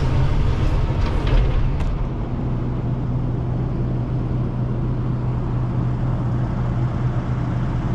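Excavator diesel engine running steadily with a low, even hum. About two seconds in, a louder stretch with clicks stops abruptly and the engine hum carries on alone.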